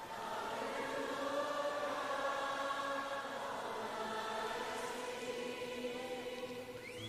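Large concert audience singing together in long held notes, sounding like a big choir.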